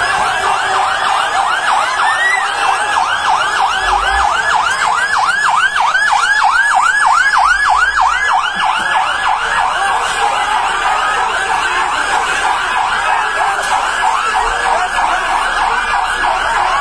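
Fire engine siren in fast yelp mode, its pitch sweeping up and down about three times a second, close by; it stops near the end.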